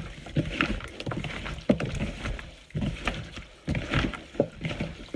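Gloved hands tossing and turning raw, seasoned chicken wings in a plastic bowl. The pieces slap and knock against each other and the bowl in an irregular string of short thuds.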